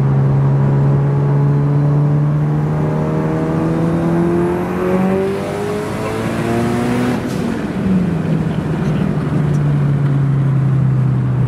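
Turbocharged four-cylinder engine of a 700-horsepower Mitsubishi Lancer Evolution heard from inside the cabin, pulling hard with its pitch climbing. About seven seconds in there is a short burst of noise, after which the pitch drops and the engine runs on steadily.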